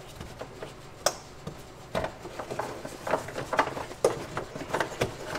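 Irregular sharp clicks and light rattles of plastic electrical connectors and harness clips being unplugged and worked free by hand.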